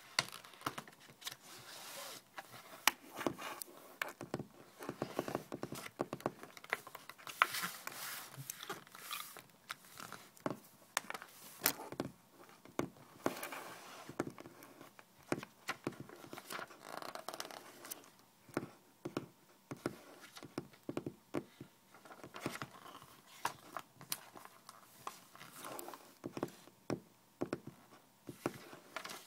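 Glossy magazine pages being flipped and rustled, mostly in the first half, with many quick, sharp fingertip taps on the paper and the tabletop throughout.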